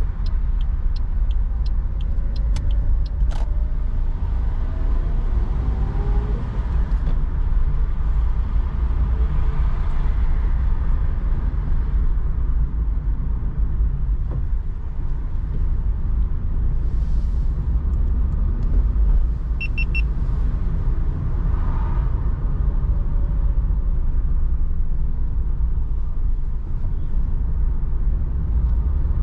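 Car cabin noise while driving: a steady low rumble of engine and tyres on a wet road. A turn indicator ticks about twice a second for the first few seconds, then stops. A short electronic beep sounds about two-thirds of the way through.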